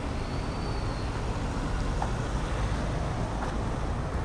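Steady outdoor city street noise, a low rumble like passing traffic, with a faint brief high tone near the start.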